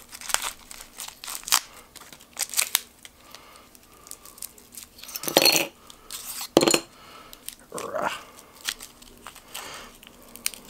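Clear plastic wrapping crinkling and tearing as it is pulled off carbon fiber frame plates, in irregular rustles and crackles, with a couple of louder bursts a little past halfway.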